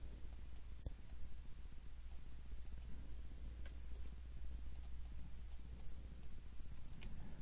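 A few scattered, faint clicks of a computer mouse as vertices are selected and dragged, over a steady low hum.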